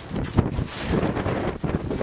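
Wind buffeting the microphone: a gusty, uneven rumble.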